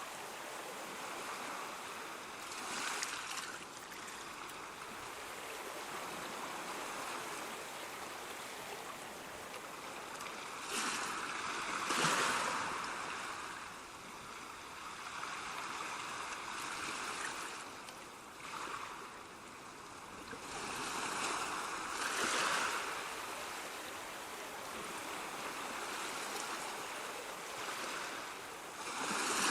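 Sea waves washing onto a shore: a steady rush of surf that swells as individual waves break every few seconds, the loudest about twelve seconds in.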